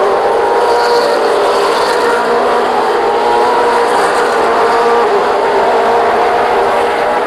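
A pack of V8 Supercars, several 5-litre V8 racing engines at once at high revs, loud and steady.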